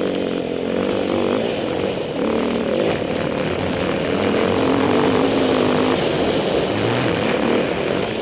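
Yamaha WR450F trail bike's single-cylinder four-stroke engine running under way on a muddy trail, its pitch rising and falling as the throttle is worked.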